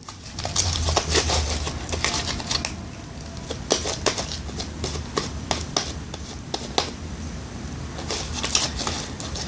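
Sticky clear glue slime being worked on a plate, giving irregular sticky clicks and crackles over a low hum.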